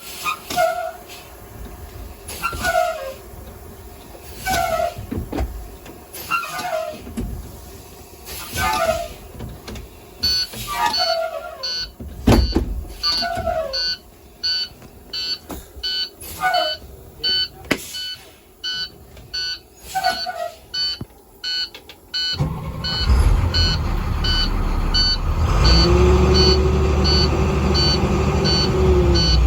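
The brakes of a 2009 IC CE300 bus make a repeated falling squeal, about one every two seconds, which the owner calls weird brake sounds, like those of a Blue Bird. From about ten seconds in, a fast run of dash warning beeps joins, and about 22 seconds in the warm 7.6L MaxxForce DT diesel starts and runs, with the beeps going on over it.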